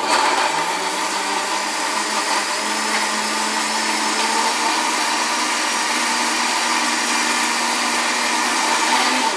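Countertop blender switched on and running steadily at one speed, puréeing chopped tree tomato and goldenberries with water into a smoothie. Its whir holds an even pitch throughout.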